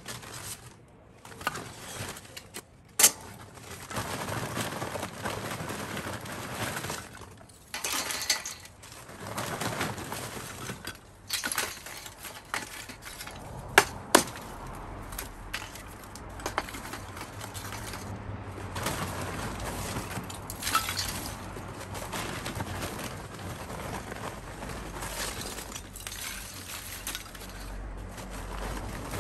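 Lumps of Devil's Competition XL lump charcoal clinking and knocking together as they are taken from the bag and dropped into a Pit Barrel Cooker's charcoal basket, with the bag rustling between them. A few sharp, glassy clinks stand out among the rest.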